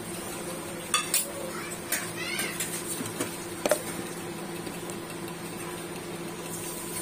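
Steel mixer-grinder jar being handled: a few light metallic clinks and knocks, about one and two seconds in and again near four seconds, with soft scraping over a faint steady hum.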